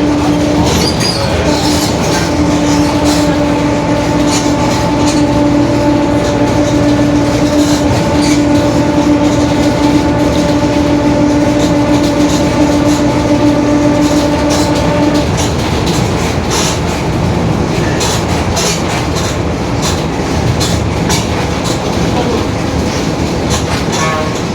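Mercedes-Benz OF-1721 BlueTec 5 bus under way, its differential giving a steady drone that holds for a little over half the time and then fades away. Over it run constant road noise and body rattles.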